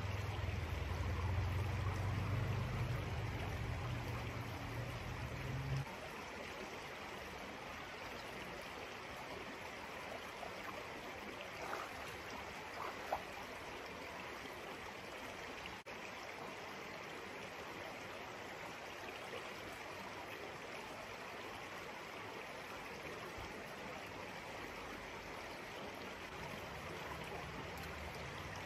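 Steady rushing of a small creek's flowing water. For about the first six seconds a low rumble sits over it and then stops suddenly, and there are two faint ticks around twelve seconds in.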